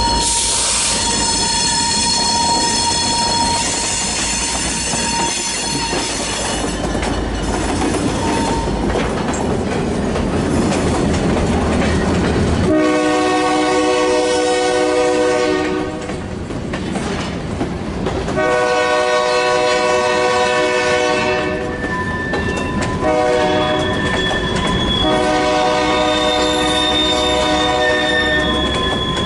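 Covered hopper cars rolling past with wheel clatter behind an EMD GP30 locomotive, whose K5LA five-chime air horn sounds a grade-crossing signal up the line: two long blasts, a short one, then a long one near the end. At the start the locomotive itself rumbles past close by.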